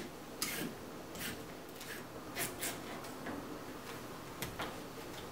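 A knife chopping carrots and celery on a cutting board: a few quiet, irregular taps of the blade striking the board.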